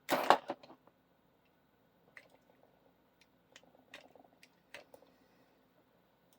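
A brief rustling clatter at the start, then a handful of light clicks and taps spread over the next few seconds as tools and a power cord are handled.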